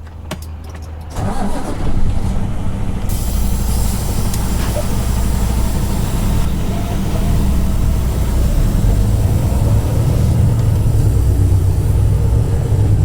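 Semi truck's diesel engine idling, then pulling away under load about a second in and running on steadily as the truck gets under way; a hiss joins in a couple of seconds later.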